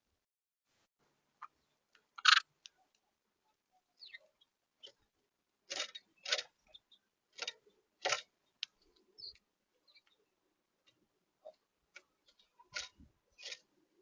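Irregular sharp taps and clicks of birds pecking and moving about on a bird feeder. There are about a dozen, the loudest about two seconds in and a quick pair near the end, with a few faint short high chirps between them.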